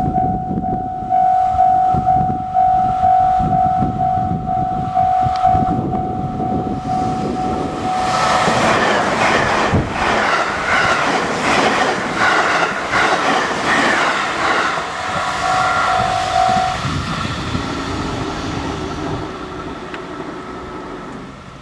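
Japanese level-crossing bell dinging in a steady quick repeat. About 8 seconds in, an eight-car JR Central electric train made up of 211 and 313 series units passes close by, its wheels clattering over the rail joints. The bell stops at about 17 seconds, and the train noise fades away after it.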